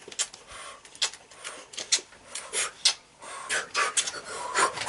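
Two children blowing kisses: a quick, irregular run of lip smacks with breathy puffs between them.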